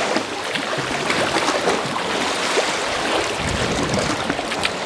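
Sea water splashing and sloshing against a sea kayak's hull as it is paddled through choppy water, a steady rush broken by short splashes.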